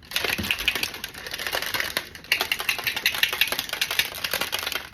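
Collagen powder drink being mixed in water: a fast, continuous rattling and clicking, with a short break about two seconds in.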